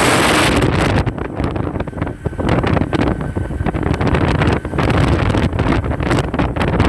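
Loud wind buffeting on the microphone of a camera carried in a moving vehicle: a gusty rumble that rises and falls, with the vehicle's travel noise underneath.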